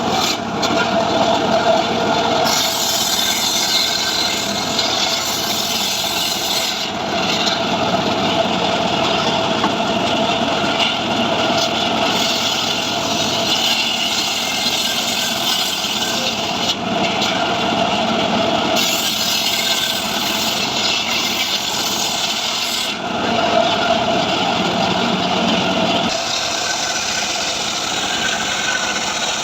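Stihl MS 382 two-stroke engine running hard while sawing through dry mahogany. The saw's tone shifts every few seconds as the load on the cut changes.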